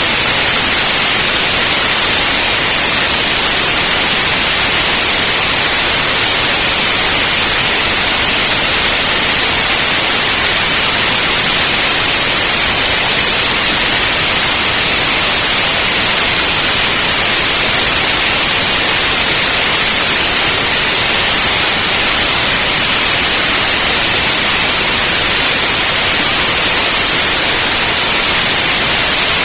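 Loud, steady synthetic white noise: an even hiss, strongest in the highs, unchanging throughout.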